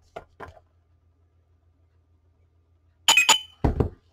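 A drinking glass clinking briefly with a short ring, about three seconds in, followed by a dull low knock. Before that, only a faint low hum.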